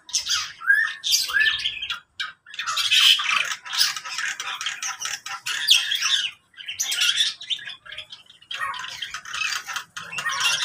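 A mixed aviary of lovebirds and other cage birds calling together: a busy, overlapping chatter of shrill squawks and chirps, broken by short pauses about two seconds in and again past the middle.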